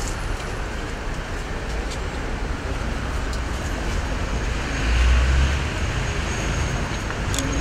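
Steady low rumble of road traffic, swelling louder about five seconds in, with a sharp click near the end.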